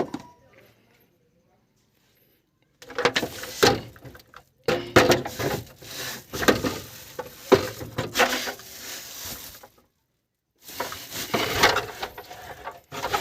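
Clicks, knocks and scraping of a wrench working on a car battery's terminal clamp as it is tightened, in three stretches with short pauses between them.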